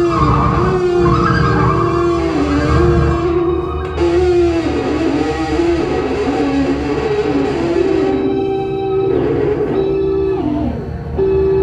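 Live experimental music: a loud, held melody line that bends and glides between notes over a dense low drone, dipping briefly near the end.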